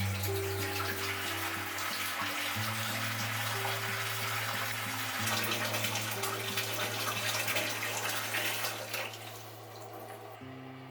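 Water running steadily, with a soft hiss, and dying away near the end, over quiet background music.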